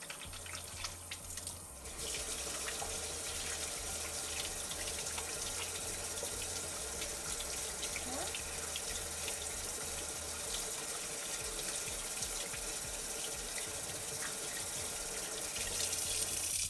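Kitchen sink faucet turned on about two seconds in, its water running steadily over hands rinsing off soap, then shut off suddenly at the end. Before it comes on there are soft clicks of wet hands being rubbed together.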